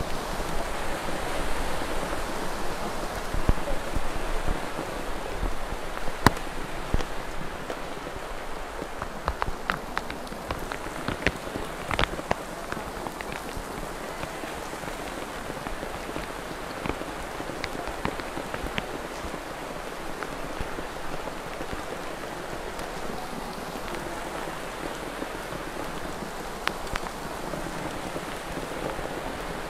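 Holy water pattering and splashing down steadily, with scattered sharp drips and splashes that are thickest and loudest in the first half.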